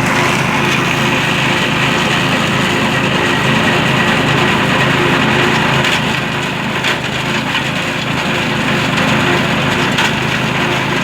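Engine-driven grass chopper running steadily while shredding corn stalks, a continuous crackle of stalks being cut over the engine hum, with a few sharper cracks.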